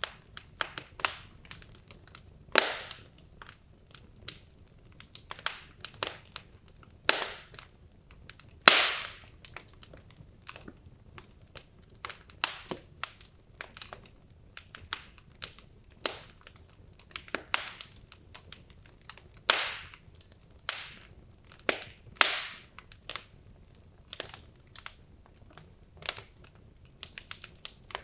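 Wood logs burning in a fireplace, crackling with many irregular sharp pops and clicks; a handful of louder pops stand out, each with a brief hiss.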